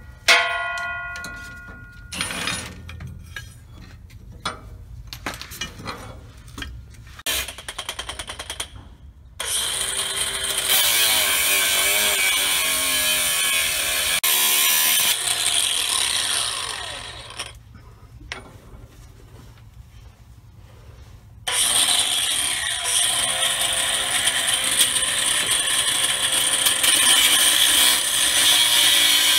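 Angle grinder cutting into steel on a Freightliner truck's driveshaft to take off the old carrier (center support) bearing, which had seized. It starts about nine seconds in, runs for about eight seconds, stops for about four, then starts again and keeps running. Before it come scattered clicks and knocks.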